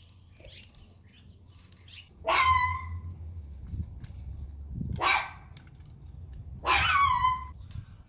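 Three loud, short animal calls, each sliding up in pitch at the start and then holding it, spread a couple of seconds apart.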